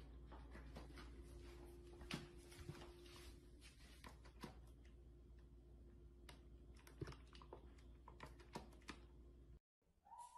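Near silence with faint, scattered clicks and crinkles from a dog moving about with a paper bag stuck over its head, over a faint steady hum.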